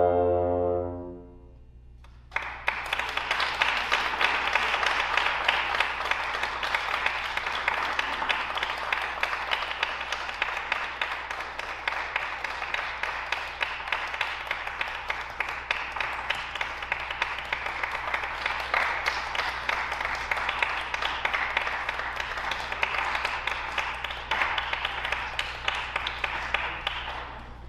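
Tuba and piano end a piece on a final held note that stops about a second in. After a short pause the audience applauds steadily until near the end.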